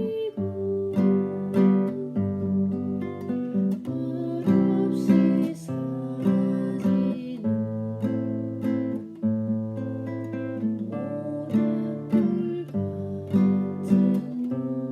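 Acoustic guitar played in waltz rhythm: a bass note followed by strummed chords, repeating evenly as the chords change.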